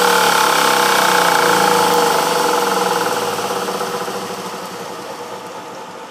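Bench-grinder motor driving a belt-grinding attachment, running with a steady drone and then slowly winding down, its pitch and loudness sinking over the last few seconds as it coasts to a stop after the initial grind.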